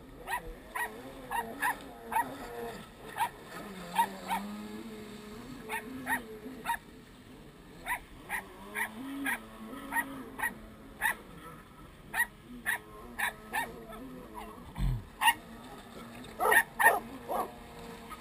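Dog barking over and over in short sharp barks, bunched together near the end, over a low wavering drone from jet skis running on the water.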